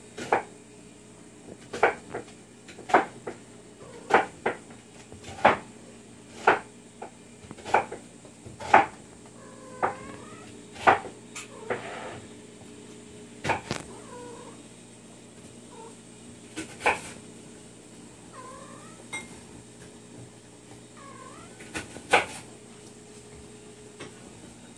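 Hairless kittens mewing: short, loud mews about once a second, thinning out after about 14 seconds, with fainter, wavering mews in between.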